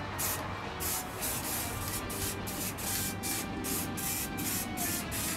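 Aerosol spray paint can hissing in short, repeated bursts, about two or three a second, as paint is sprayed onto a 3D-printed plastic prop.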